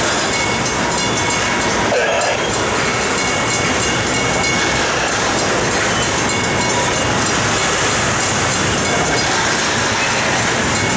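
Loaded BNSF steel-slab freight train's cars rolling past at steady speed, wheels clattering on the rails, with a faint high wheel squeal.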